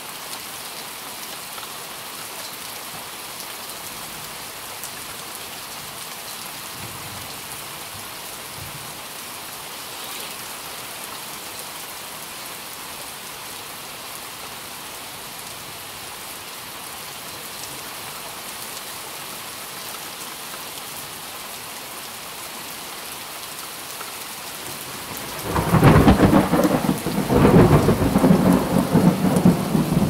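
Steady rain falling, an even hiss, with a loud thunderclap breaking in about 25 seconds in and rumbling on for several seconds.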